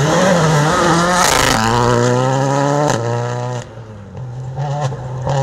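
Rally car's engine heard from inside the cabin, revving hard on a gravel stage, with a short hiss about a second in. About three and a half seconds in the engine note drops away sharply as the throttle is lifted, then picks up again more quietly.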